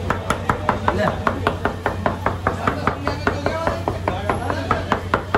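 Knife chopping rapidly and evenly on a cutting board, about five strokes a second, over a steady low hum.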